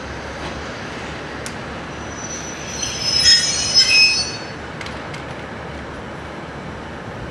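Steel train wheels squealing against the rails over a steady rolling rumble. A high, multi-toned squeal rises about three seconds in and fades after about a second and a half.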